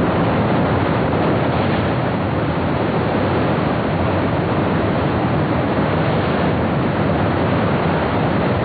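Whitewater rapids of a steep mountain river rushing loudly and steadily, an even wash of water noise with no break.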